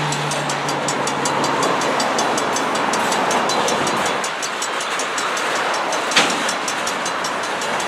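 Freight train cars, centerbeam flatcars loaded with wrapped lumber, rolling past on the rails with a steady wheel-on-rail rumble, and one sharp clank about six seconds in.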